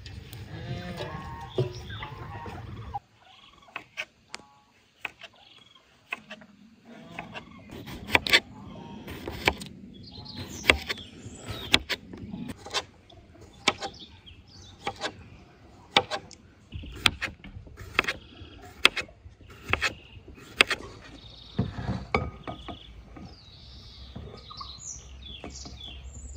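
A kitchen knife knocking on a wooden cutting board as cucumbers are sliced, a long series of sharp knocks about one a second. Birds chirp briefly near the end.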